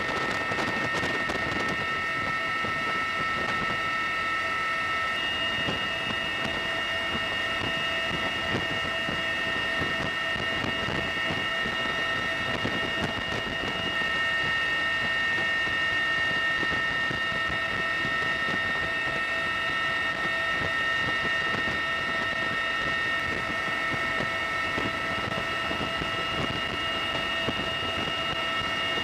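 Aircraft running steadily: a constant drone with several steady high-pitched whines over it, unchanging throughout.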